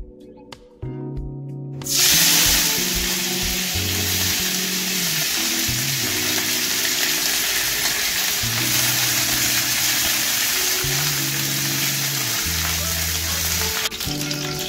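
Curry leaves dropped into hot oil in a stainless steel kadai about two seconds in, setting off a sudden, loud, steady sizzle as they fry and are stirred; the sizzle eases a little near the end as the leaves are lifted out.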